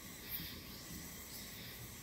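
Quiet outdoor ambience: a steady hiss with faint, short high-pitched chirps, and a brief soft sound about a third of a second in.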